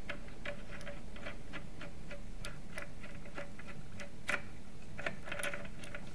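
A 25 mm ball screw being turned back and forth by hand in its newly fitted bearing block, giving light, irregular metallic clicks and ticks. The screw turns very smoothly.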